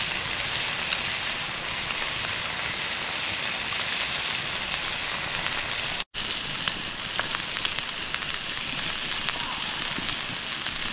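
Steaks frying in whiskey in a cast iron skillet over a campfire: a steady, loud sizzle with fine popping crackles. The sound breaks off for a moment about six seconds in, then goes on.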